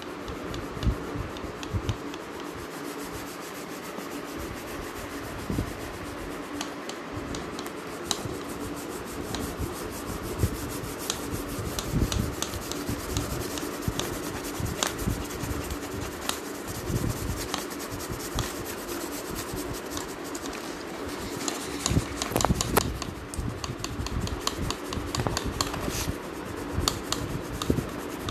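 Coloured pencil shading on paper: fast, scratchy back-and-forth strokes that keep going, busiest a little after two-thirds of the way through. A steady low hum runs underneath.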